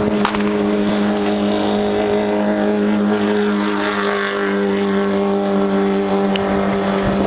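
An engine running at a steady speed, a constant unchanging drone, with a swell of louder engine and road noise about halfway through.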